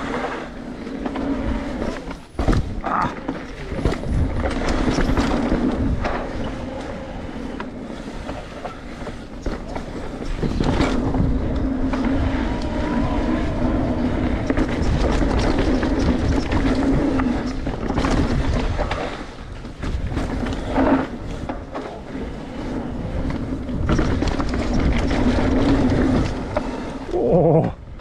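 Mountain bike running fast down a rough freeride trail, heard from a camera on the bike or rider. The frame and chain rattle continuously, with sharp knocks from bumps and landings, over a steady rumble of tyres and wind. A brief falling whine comes near the end.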